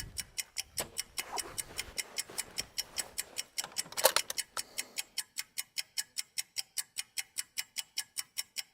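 Steady clock-like ticking of a countdown timer, about five ticks a second, with one louder click about four seconds in.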